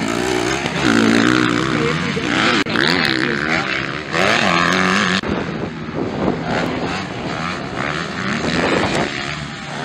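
MX2-class (250 cc) motocross bike engines revving hard, their pitch climbing and dropping again and again as the throttle opens and closes, the sound changing abruptly a few times.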